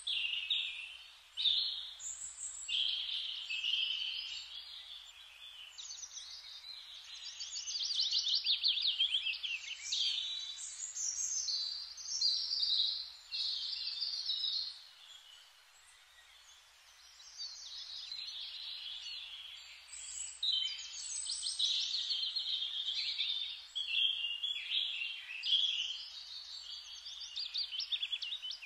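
Calligraphy pen nib scratching across paper in a run of short writing strokes, with a lull of about two seconds midway.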